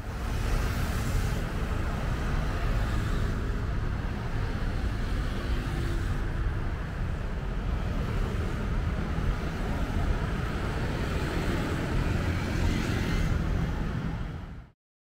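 Steady road traffic noise from cars and motorbikes on a busy multi-lane city road, a continuous wash of engines and tyres with a heavy low rumble. It cuts off abruptly near the end.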